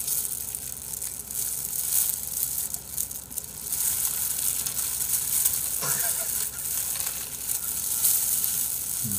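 Crispy fried chicken being torn apart by hand in plastic gloves: a steady crackle of breaking batter mixed with the rustle of the gloves.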